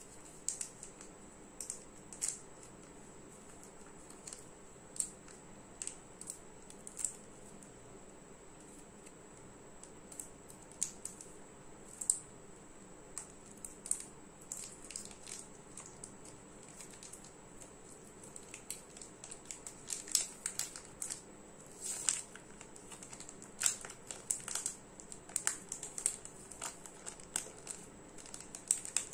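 Outer wrapper and inner foil of a Galaxy crispy chocolate bar crinkling and tearing as fingers peel them open. Sparse crackles at first, growing denser and louder about two-thirds of the way in.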